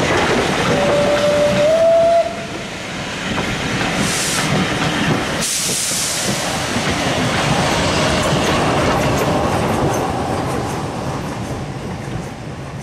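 Steam-hauled passenger coaches rolling past with clickety-clack over the rail joints. A short steady whistle tone, stepping up slightly in pitch, sounds in the first couple of seconds. The steam locomotive at the rear of the train hisses steam as it passes, around four and six seconds in, and the noise then fades as the train moves away.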